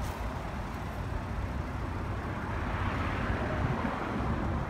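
Steady road-traffic background noise, swelling for a second or so about three seconds in.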